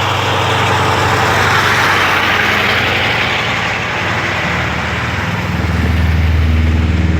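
A heavy diesel engine running steadily, its low hum growing louder about two-thirds of the way through, over a noisy wash of street sound.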